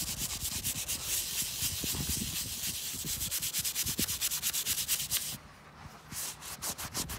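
Small wire brush scrubbing back and forth on the edge of an unsealed terracotta tile in quick, even scratchy strokes, working acid into white calcium and lime efflorescence to lift it. The scrubbing stops briefly about five and a half seconds in, then resumes.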